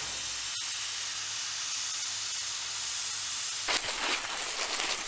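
Steady hiss of a fire hose spraying a jet of water. A little before four seconds in, it gives way to a louder, rougher noise that rises and falls.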